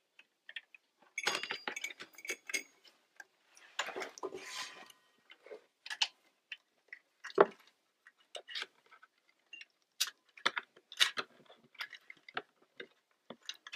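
Irregular small clicks, taps and rustles of electrical wires and plastic connectors being handled around a treadmill drive motor, with one sharper click about halfway through.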